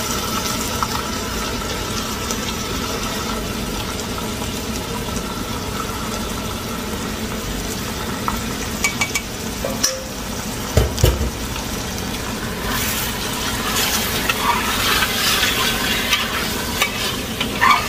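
Curry paste sizzling in a steel pot while yogurt-and-spice chicken marinade is scraped in from a bowl with a spatula and then stirred. A few knocks of the spatula against metal come around the middle, and the sizzle and stirring grow louder from about two-thirds of the way through.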